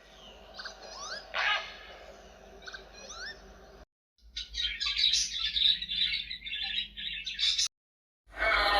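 Birds chirping and calling in short rising notes, in two separate stretches, each cut off abruptly by a brief gap of silence.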